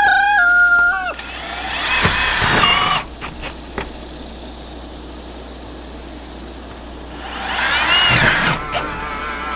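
Rooster crowing: a long held crow ends about a second in, followed by two more arching calls around two and eight seconds in, with a few faint clicks between them.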